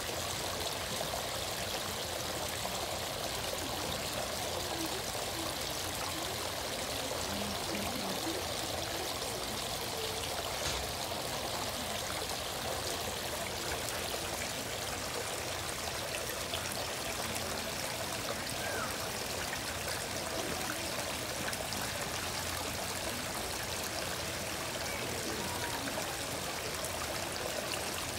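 Small rock waterfall spilling into a koi pond: a steady splashing trickle of falling water.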